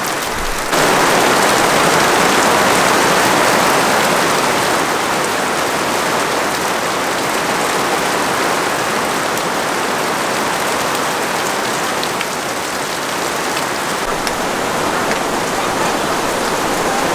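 Heavy rain pouring down in a steady hiss, heard from under a camping tarp; it gets louder about a second in, a full downpour.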